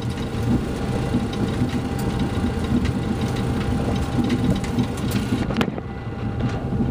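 Cockpit noise of an MD-80 taxiing onto the runway at idle thrust: a steady hum from its rear-mounted Pratt & Whitney JT8D turbofans and the airflow, with a few light clicks. The upper hiss thins out about five and a half seconds in.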